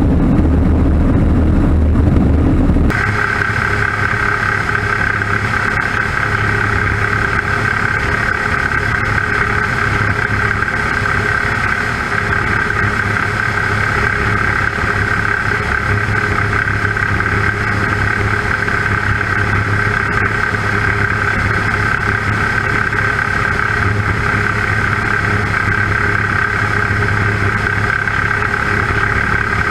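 Light aircraft's piston engine and propeller running steadily in cruise flight. About three seconds in the sound switches abruptly from a heavier, lower drone to a thinner one with a steady high whine, which then holds unchanged.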